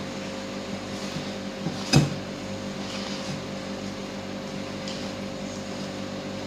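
Wooden spoon stirring a thick tuna and flour mixture in a glass bowl, knocking sharply against the bowl once about two seconds in, with a few faint taps, over a steady mechanical hum.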